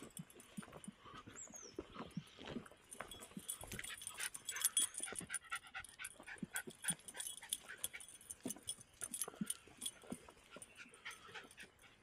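A pet dog close by, amid a stream of quick small clicks and rustles that is busiest from about three to ten seconds in.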